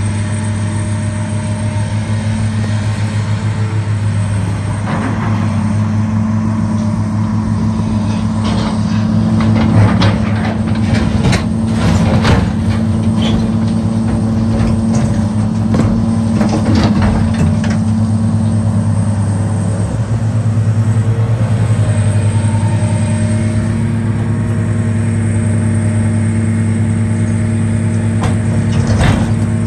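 Diesel engine of a large John Deere tracked excavator running steadily under load, with intermittent clanks and knocks of concrete rubble scraping and dropping as the bucket works.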